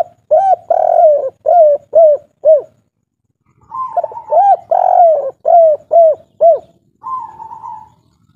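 Spotted dove (tekukur) cooing its 'kuk 3' song: two loud phrases, each a long coo followed by three short clipped notes. A softer, rougher call follows near the end.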